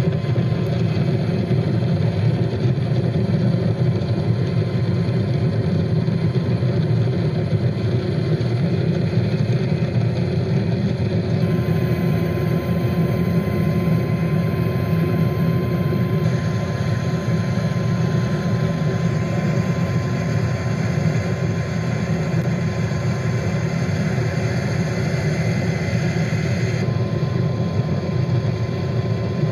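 Steady aircraft engine drone heard from inside the aircraft: a continuous low hum with a faint steady whine above it.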